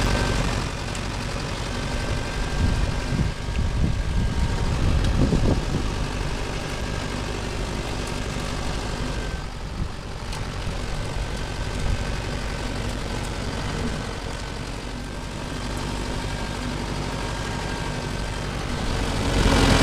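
T-40AM tractor's diesel engine running steadily as the tractor drives slowly over rough ground, with a few knocks and rattles a few seconds in.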